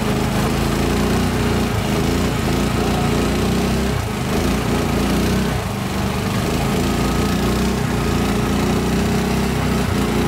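A small boat engine running steadily at cruising speed, with a hiss of water and wind.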